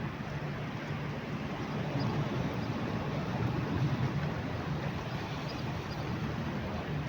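Sea ambience: a steady, even rush of surf, with a low steady hum underneath.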